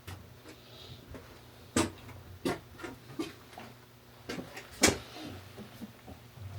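A handful of sharp knocks and clinks, about five spread unevenly, from hard objects being handled and set down. The loudest comes near five seconds in.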